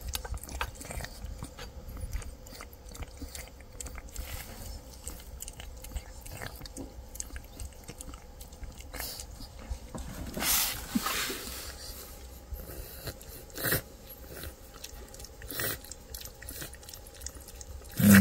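A cat chewing and lapping wet canned food, a string of small wet clicks and smacks, with a brief louder rustle about ten seconds in.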